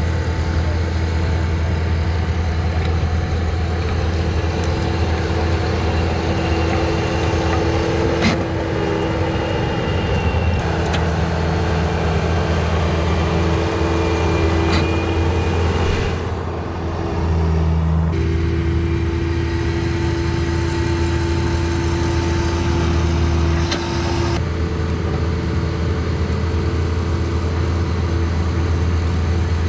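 Bobcat T190 compact track loader running steadily under load while it drives a hydraulic soil conditioner whose spinning drum churns the infield clay. The engine note shifts a couple of times, and a few sharp clicks come through.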